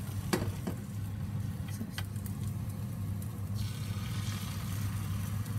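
Egg mixture hitting a hot oiled tamagoyaki pan: a few clicks of chopsticks on the pan, then a sizzle that starts about three and a half seconds in as beaten egg is poured in. A steady low hum lies underneath.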